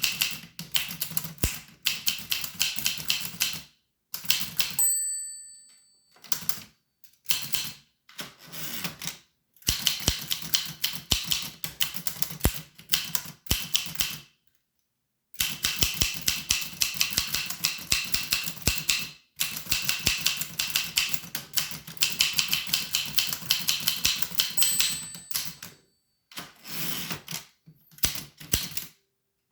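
1895 Williams No. 1 typewriter being typed on: runs of rapid key strikes broken by short pauses. A short bell ring sounds twice, about five seconds in and near twenty-five seconds, which is the margin bell signalling the end of a line.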